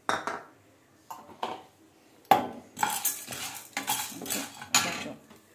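Dry popcorn kernels rattling and scraping in a non-stick pan as they are pushed around with a spatula: a run of short clatters and scrapes, a few at first, then thick and fast from a little over two seconds in. There is hardly any sizzle: the oil is not yet hot.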